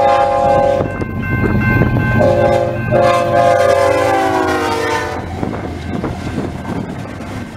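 Diesel freight locomotive's multi-chime air horn blowing for a grade crossing: one blast that breaks off about a second in, then a long blast whose pitch slides down as the lead locomotive passes and ends about five seconds in. Under it the locomotives' engines and the train's wheels rumble, fading toward the end.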